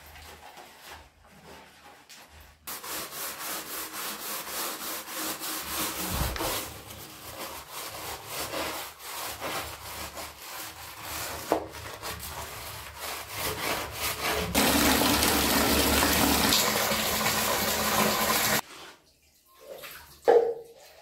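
A hand brush scrubbing wet, soapy bathroom tiles in quick rubbing strokes. About fifteen seconds in, water runs steadily for about four seconds, loudest of all, then stops suddenly.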